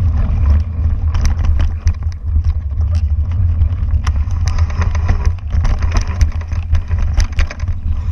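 A mountain bike rolling fast over a forest dirt trail: wind buffets the bike-mounted camera's microphone with a heavy rumble, while tyre crunch and rattling clicks come from the bike over bumps and roots.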